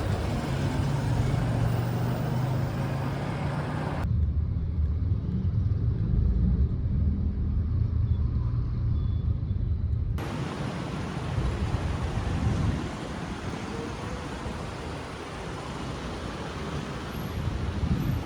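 Steady low rumble of road traffic or a running vehicle. From about four seconds in, the higher hiss drops away for some six seconds and the sound is duller, then it opens up again.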